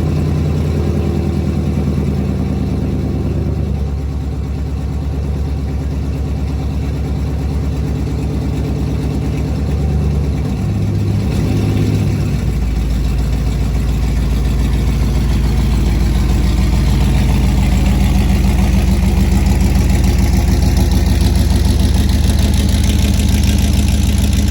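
A Chevrolet Silverado SS's 6.0-litre V8 idling just after being started, its idle note shifting a couple of times.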